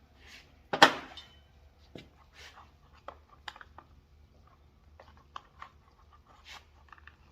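A plastic cover on a Stihl FS 56 string trimmer being pried and worked off by hand. There is one sharp, loud snap under a second in, then scattered small plastic clicks and taps with a few soft hisses.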